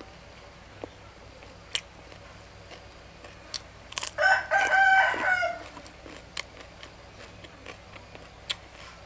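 A rooster crows once about four seconds in, a single call of about a second and a half. Scattered small clicks of eating are heard around it.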